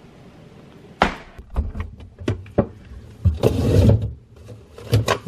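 Refrigerator door opened and things inside knocked and shuffled about: a run of sharp knocks and clatters starting about a second in, with a longer rustle in the middle.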